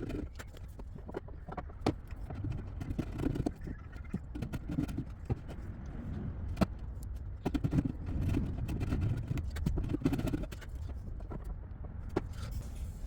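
Irregular light knocks and clicks of hand-tool work on the wooden desk drawer, over a steady low rumble.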